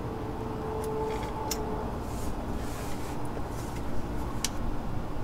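A few sharp metal clicks as a LockNLube lever grease gun's coupler is fitted onto the grease zerk of a sway-bar bushing: about a second in, again shortly after, and once more near the end. A steady low hum sits underneath.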